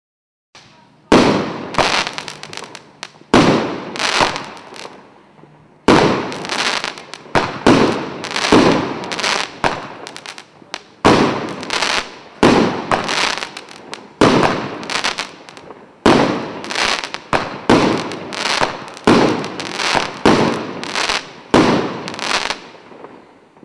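Emperor Fireworks 'Cosmic Quake' multi-shot firework firing a long series of sharp bangs, each trailing off, sometimes several in a second. The shots begin about a second in and stop just before the end.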